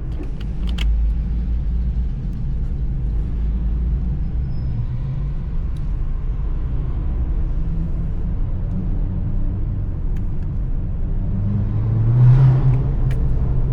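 A car driving, with a steady low engine and road rumble that swells briefly near the end as the engine pulls harder or another vehicle passes close by. A couple of small clicks come about a second in.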